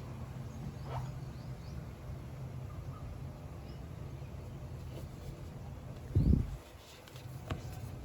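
Steady low hum with a few faint clicks, and one loud dull thump about six seconds in.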